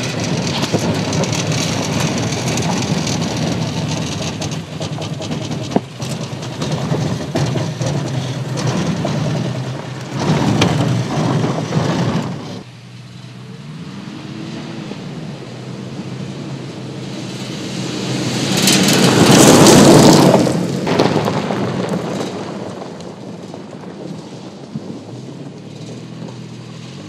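Toyota Tacoma pickup driving off-road: engine and tyres working on a dirt trail, then, after a break, the truck running along a gravel track and passing close by, swelling to its loudest about 19 to 20 seconds in and fading away. Near the end the engine note rises again.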